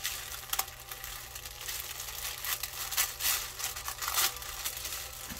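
Tissue paper crinkling and rustling in irregular bursts as hands unfold the wrapping.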